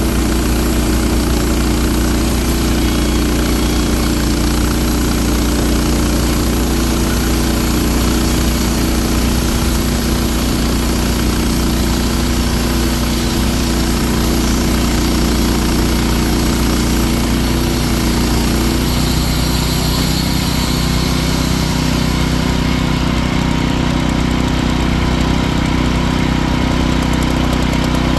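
Wood-Mizer band sawmill's engine running steadily during a long cut through a log. Its tone shifts slightly about twenty seconds in.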